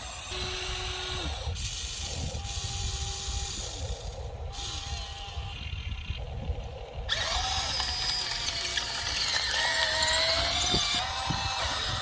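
Electric motors of a radio-controlled toy construction vehicle whining as it is operated, the whine starting, stopping and sliding up and down in pitch as each movement runs. The sound changes abruptly a few times and is louder in the second half.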